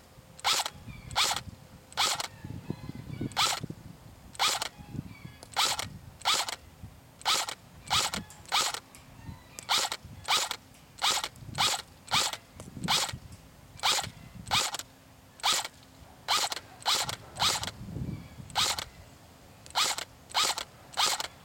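ICS-92 (Galil) airsoft electric gun firing single shots on semi-auto: a steady string of about thirty shots, one to two a second, each one short and sharp.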